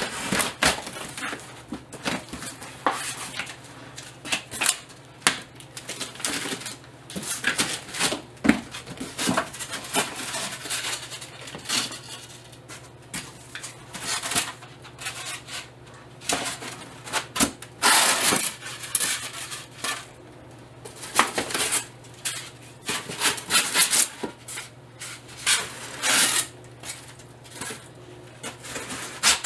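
Hands unboxing a large cardboard shipping box: packing tape being peeled, cardboard flaps scraping and packing material inside rustling and shifting, in irregular scrapes, crinkles and knocks. A faint steady low hum runs underneath.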